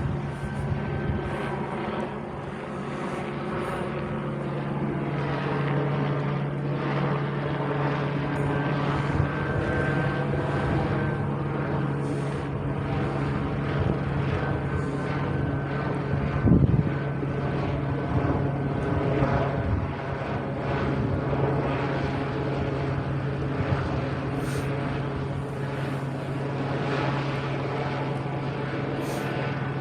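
A helicopter circling overhead, making a steady engine drone. A short knock sounds about halfway through.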